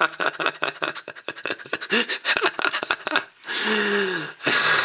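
Rapid clicking and crackling as a black plastic microwave-meal tray is flexed and tipped, its small egg dumplings sliding out into a ceramic bowl. About three and a half seconds in, a man gives a breathy vocal sound that falls in pitch.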